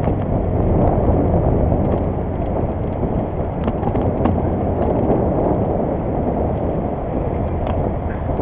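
Wind buffeting the microphone of a camera riding on a moving bicycle: a steady low rumble, with a few faint ticks.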